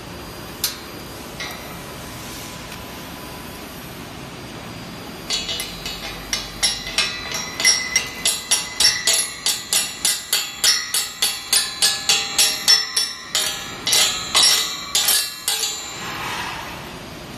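Hammer blows on a welded steel shear stud: a run of sharp metallic strikes with ringing, about two to three a second, starting about five seconds in and stopping a couple of seconds before the end, the stud being beaten over in a 180-degree bend test of the weld.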